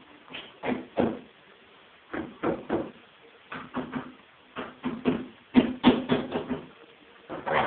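A guinea pig close to the microphone, making short sounds in bunches of two to four, about every second, with brief quiet gaps between the bunches.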